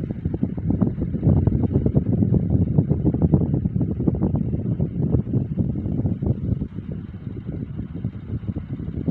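Standing electric fan running close to the microphone, its airflow buffeting it into a steady low rumble.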